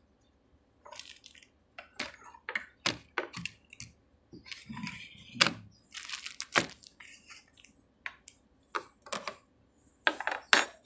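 Plastic packaging crinkling and rustling, with irregular clicks and light knocks as the parts of a solar floodlight kit are unwrapped and handled on a wooden table.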